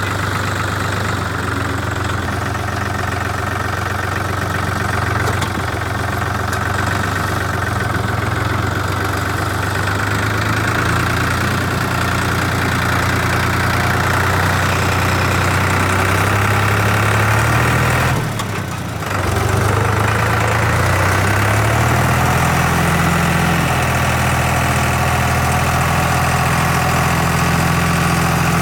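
A tractor's diesel engine runs steadily. About eighteen seconds in it briefly drops away, then comes back with a slightly higher engine note.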